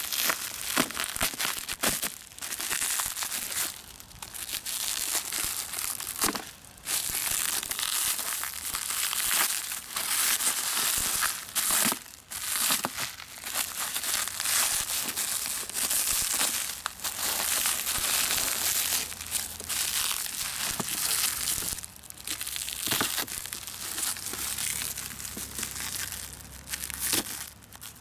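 Plastic courier mailer bag and its packing tape crinkling and rustling continuously as it is handled and cut open with a folding knife, with frequent sharp crackles and a few short pauses.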